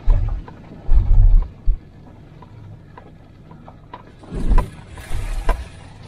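A vehicle driving slowly over a rough dirt forest track: several heavy, low thumps and jolts as it goes over bumps, clustered near the start and again past the middle, with small clicks and rattles between.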